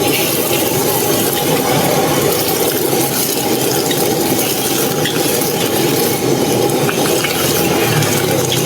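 Egg fried rice frying in a wok: a steady loud sizzle and rush with a few light clicks.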